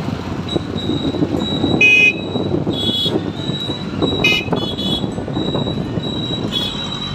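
Road traffic heard from a moving two-wheeler: vehicle horns honking in short blasts several times, the loudest about two seconds in, over steady engine and road noise.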